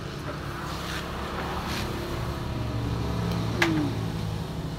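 A motor or engine running steadily with a low hum, and one sharp click about three and a half seconds in.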